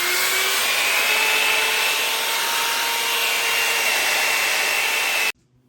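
Bauer variable-speed grinder with a 180-grit sanding pad sanding a cast iron skillet: a steady motor whine over the hiss of abrasive grinding on iron. It cuts off suddenly about five seconds in.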